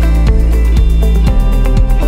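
Background music with a steady beat, about two beats a second, over held bass notes.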